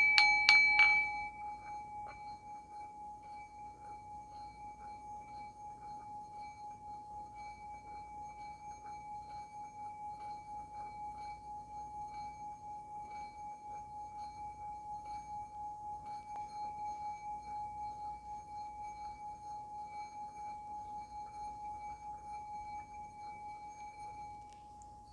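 Small brass singing bowl struck once with a wooden mallet, then rimmed with the mallet so that it sings one steady ringing tone with a slow, even pulse. It is quite a low tone, swells a little past the middle, and dies away just before the end.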